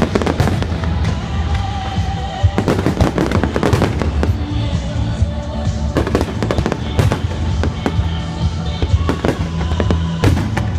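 Fireworks bursting in rapid succession: many sharp bangs and crackles, one after another, over loud music.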